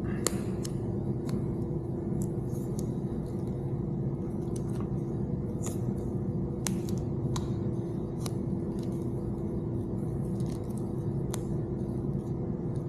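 Electrical tape being wrapped around freshly spliced radio harness wires: scattered small clicks and crackles of tape and wire handling, over a steady low hum.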